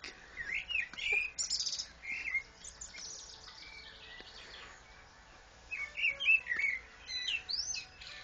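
Songbirds chirping and singing in short, quick whistled notes, in two bouts with a pause of a few seconds between them.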